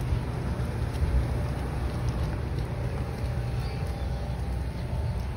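Steady low rumble of kick-scooter wheels rolling over an asphalt path.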